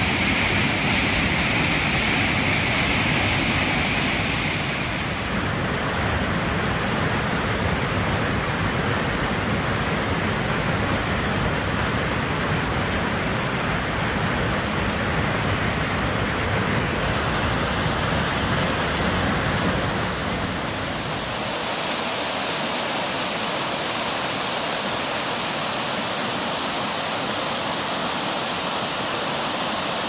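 Mountain waterfall of about 15 to 20 m pouring through a narrow rock gorge: a loud, steady rush of falling water. About two-thirds of the way through, the low rumble fades and the rush turns brighter and hissier.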